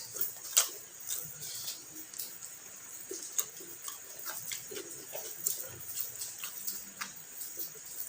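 Close-up eating sounds: chewing with irregular wet mouth clicks and lip smacks.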